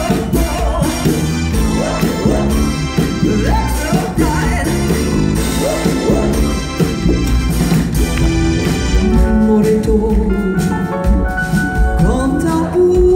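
Live band playing a loud song with strummed acoustic guitars, electric bass and drums, and a woman singing. In the second half she holds long notes, the last one with vibrato near the end.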